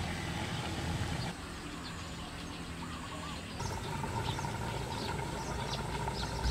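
Outdoor background ambience: a steady low rumble, with faint, short bird chirps repeating in the second half.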